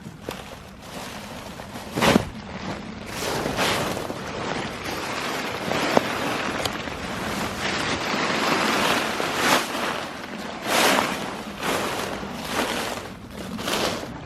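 A hunter walking through dry leaves and brush, uneven rustling and crunching swishes every second or two, with a sharp crack about two seconds in.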